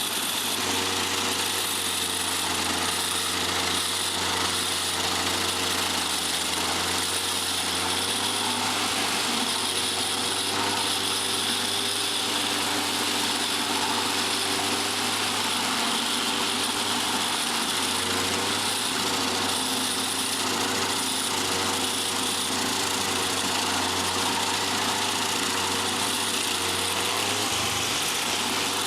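Stump grinder engine running steadily under a dense, hissing mechanical din. The engine's pitch dips and recovers a few times as it works.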